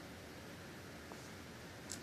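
Plastic LEGO pieces being handled and pressed together: a faint click about a second in and a sharper click near the end, over a steady hiss.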